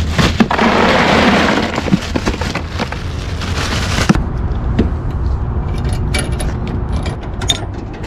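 Bagged ice cubes clattering and crackling in a crinkling plastic bag as they are tipped out. A dense burst of clatter comes in the first couple of seconds, then scattered clicks that thin out after about four seconds.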